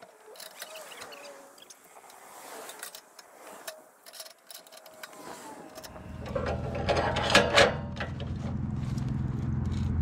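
Metal clicks and scrapes of a portable bandsaw mill's log stops and dog clamp being set against a log, with a louder clatter of the clamp about seven seconds in. From about six seconds in, a steady low engine hum runs underneath.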